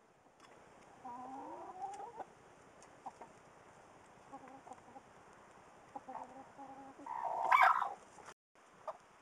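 Broody hen chirping and clucking: a rising call about a second in, then short low clucks, and a louder, harsher call about three quarters of the way through.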